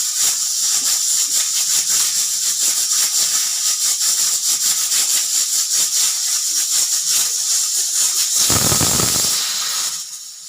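Pressure cooker whistle venting steam: a loud, continuous high hiss with a fast rattle. A brief low rumble about eight and a half seconds in, then the hiss falls away about ten seconds in.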